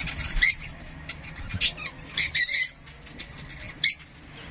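Young parrot chick squawking shrilly while being hand-fed from a syringe: short sharp begging calls, four or five of them, with a quick cluster near the middle.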